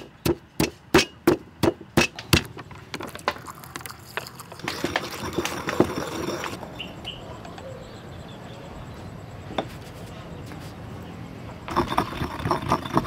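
A quick, even run of sharp knocks, about three a second, for the first two and a half seconds, then scattered fainter knocks. A stretch of hiss comes in about five seconds in and lasts under two seconds.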